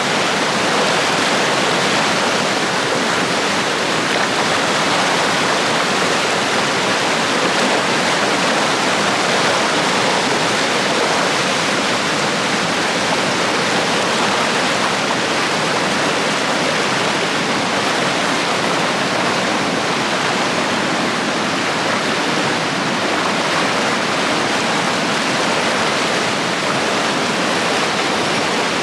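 Mountain stream rushing over rocks in a gorge: a steady, full rush of white water without a break.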